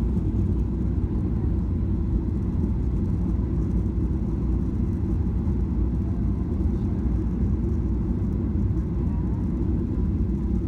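Steady low rumble of a Boeing 737-700's CFM56 engines and airflow, heard from inside the passenger cabin, with a faint steady whine.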